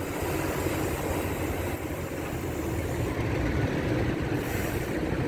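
Steady rumble of wind on the microphone and road noise from a moving bicycle, mixed with the engines of jeepneys and a bus in the traffic ahead.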